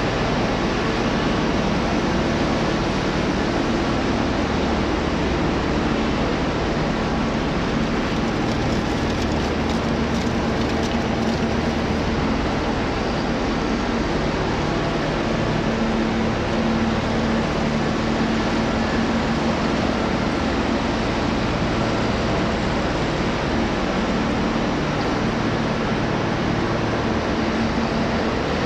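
Machinery of a scrap washing machine crushing and sorting line running: a loud, continuous industrial din with a steady low hum, unchanging throughout.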